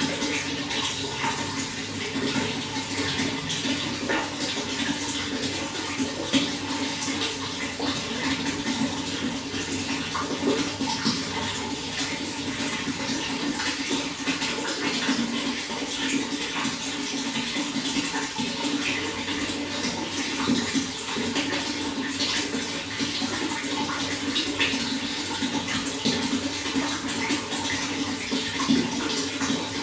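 Running water flowing steadily: an even rush with many small splashes through it.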